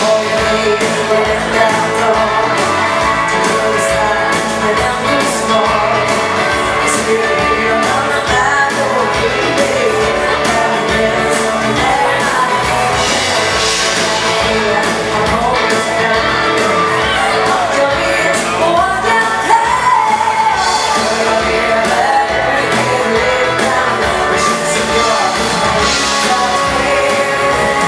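Swedish dansband playing live, a male singer over a band in an upbeat bugg (Swedish swing dance) tune.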